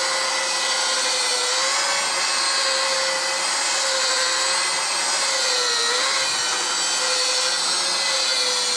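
Handheld power tool spinning a buffing pad on a plastic headlight lens with rubbing compound, running at a steady speed with a steady whine; its pitch sags briefly about six seconds in.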